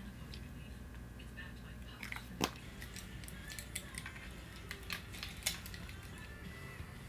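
Scattered small sharp clicks and crackles of hand work on a deer mount, the loudest about two and a half seconds in, over a low steady hum.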